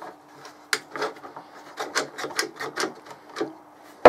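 Plastic one-handed ratchet bar clamp being worked along a flat steel bar: a run of irregular sharp clicks as the trigger is pumped and the jaw rides on the steel.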